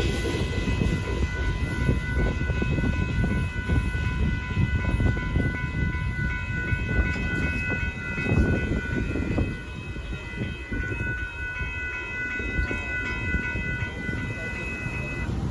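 Union Pacific hopper car train rolling past, a steady rumble of wheels on rail that eases somewhat in the last few seconds. A faint steady ringing tone sits over it and stops shortly before the end.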